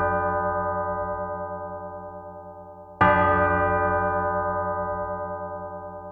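Church bell heard close, tolled singly: struck once about three seconds in, each stroke ringing out long with many overtones and a slow wavering hum as it fades.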